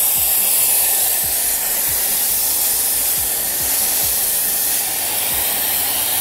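Snow foam lance on a Kranzle Therm CA11/130 hot pressure washer spraying hot foam: a loud, steady hiss, with faint low pulses about twice a second underneath.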